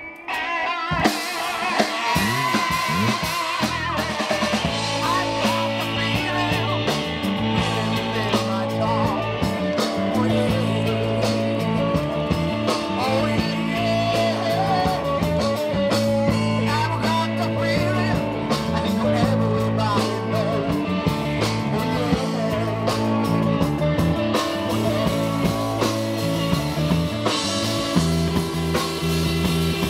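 Live rock band playing: a drum kit keeping a steady beat under electric guitar and a sustained bass line.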